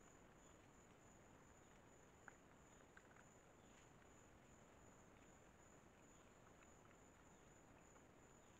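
Faint, steady high-pitched insect trill over a quiet background hiss, with a couple of soft ticks two to three seconds in.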